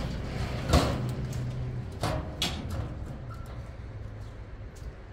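Used metal doors and window frames being handled and moved about, with one sharp knock a little under a second in and a couple of clanks about two seconds in, over a low steady hum.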